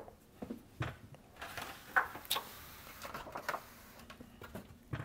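Handling noise as the phones are moved about: a string of irregular light clicks and knocks.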